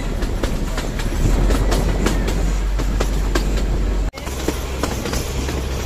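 Narrow-gauge passenger train running, heard from a coach window: a steady low rumble with irregular sharp clicks and rattles from the wheels over the rail joints. The sound drops out for an instant about four seconds in, then carries on.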